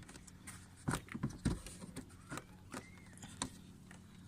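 Scattered knocks and clicks of hands working a clipped-on plastic interior panel behind a car's glove compartment, pulling at its tabs, over a steady low hum.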